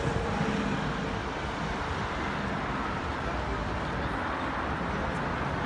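City street traffic noise: a steady rumble of passing vehicles.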